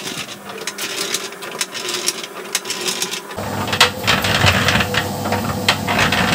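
Small electric concrete mixer running, its drum tumbling dry ground rabbit-feed mix with hay meal in it, making a rapid rattling clatter. A little over three seconds in it gets louder, with a steady low motor hum underneath.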